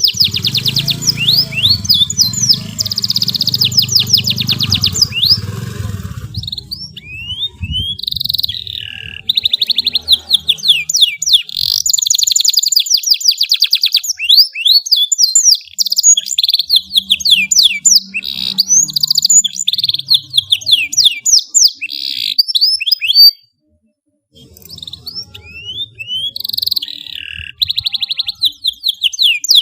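Domestic canary singing a long, continuous song of fast high trills and rolling phrases, with a silent break of about a second near the last quarter.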